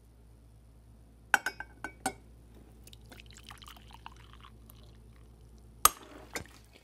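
Hot coffee poured from a drip coffee maker's glass carafe into a glass jar: a few light glass clinks, a quiet pour, then one sharp crack near the end as the jar breaks from the heat of the coffee.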